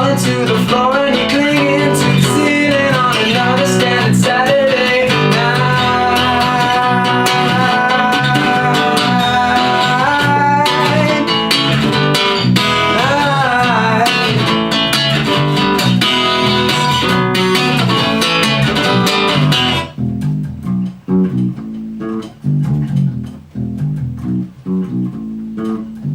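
Band music with guitars and bass, a lead line bending and sliding in pitch over the full band. About twenty seconds in the band drops out, leaving a sparser, stop-start bass line.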